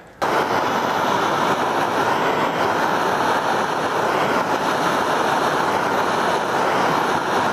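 Handheld gas torch burning with a steady hiss, starting abruptly just after the beginning. Its flame is heating a car thermostat to test whether it opens.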